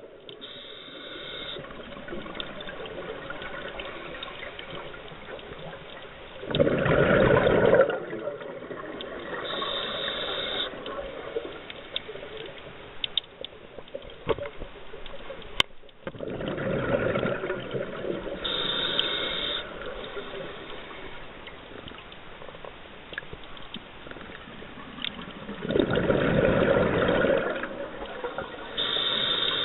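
Scuba diver breathing through a regulator underwater: three long rushes of exhaled bubbles about ten seconds apart, each followed by a short, higher hiss of the next inhale.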